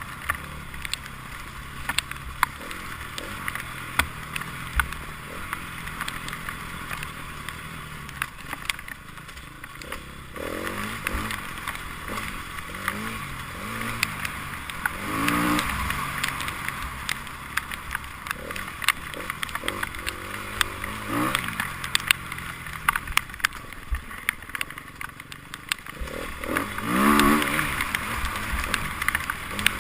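Enduro motorcycle engines. A steady low drone for the first ten seconds, then repeated revving that rises and falls as bikes go by, loudest near the end. Frequent sharp ticks and clicks run throughout.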